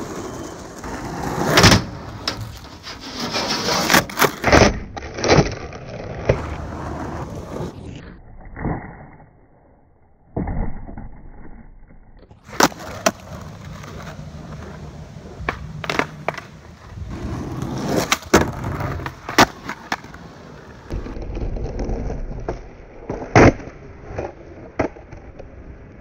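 Skateboard wheels rolling on concrete, broken by many sharp clacks of the board popping and landing.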